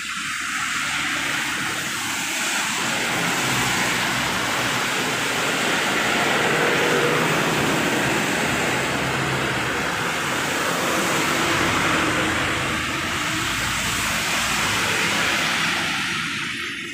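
Traffic passing on a rain-soaked road: tyres hissing through standing water over the low rumble of engines, including a bus, with rain falling. The sound swells through the middle and eases near the end.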